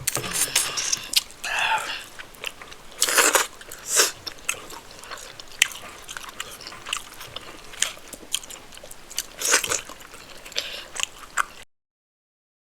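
Close-miked eating: chewing, biting and wet mouth sounds from a mouthful of rice and spinach stew with chicken, irregular clicks and smacks with a few louder longer bursts. The sound cuts off abruptly near the end.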